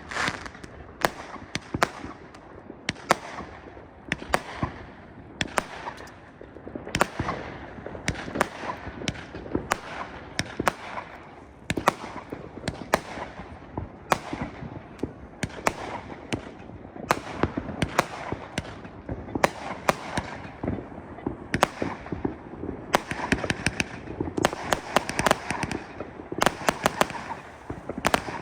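Fireworks and firecrackers going off: a dense, irregular run of sharp bangs and crackles, many overlapping, several a second.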